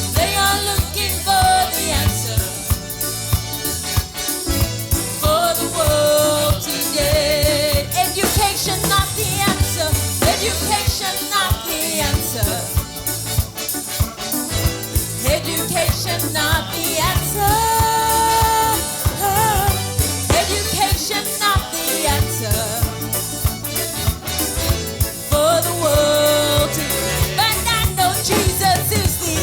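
Worship song sung over a band: held sung melody lines over a steady bass and drum beat.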